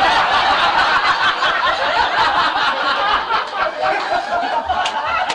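A live audience laughing together, many voices at once, right after a punchline.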